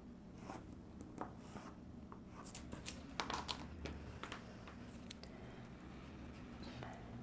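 Faint scratching of a felt-tip marker drawn along a plastic ruler on pattern paper, with scattered clicks and rustles as the rulers and paper are shifted, busiest in the first half.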